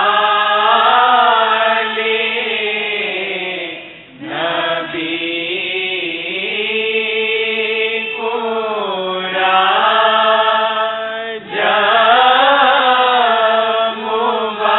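Devotional chanting sung in long, drawn-out melodic phrases, with short breaks about four seconds in and again about eleven seconds in.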